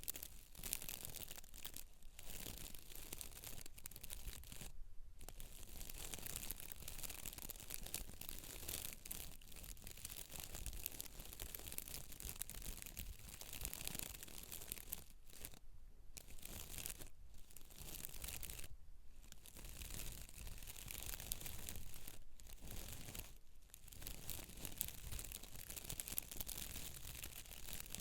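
Close-miked scratchy rubbing through hair on a scalp. It runs almost without a break, with a few short pauses.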